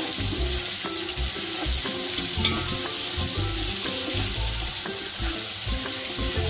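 Freshly added sliced onions sizzling steadily in hot oil in a large aluminium pot as they are stirred with a wooden spatula, the start of browning them.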